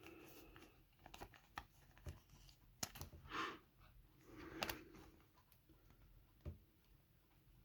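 Faint rustling and a few light clicks from trading cards and a plastic card holder being handled, as a card is slipped into a protective holder.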